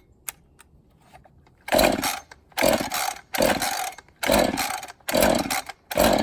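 Two-stroke chainsaw being pull-started from cold after priming: about six quick rips on the recoil starter cord, roughly one a second, each turning the engine over briefly without it catching.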